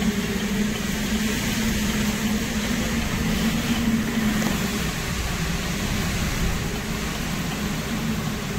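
Steady roar of a hurricane's eyewall wind with driving rain, a dense unbroken rush carrying a low, slightly wavering hum that eases off a little in the second half.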